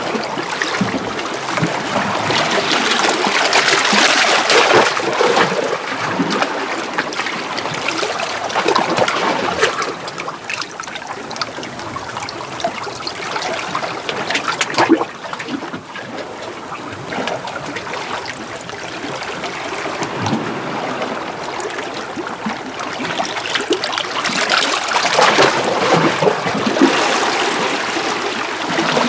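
Small sea waves washing in and out against shore rocks. The wash swells, eases off around the middle, and builds again near the end.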